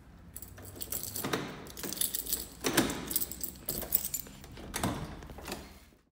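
A bunch of keys jangling and clicking in a door lock as the door is unlocked, with several sharp metallic clicks in clusters.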